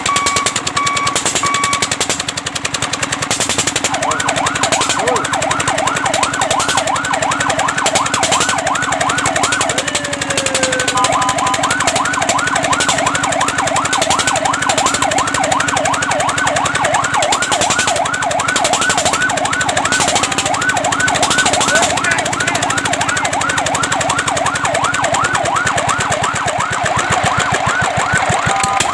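Fire truck siren: a steady tone for the first couple of seconds, then a rapid yelp sweeping up and down in pitch over and over. About ten seconds in it drops away in a falling glide, then starts again and carries on yelping, over a steady low hum.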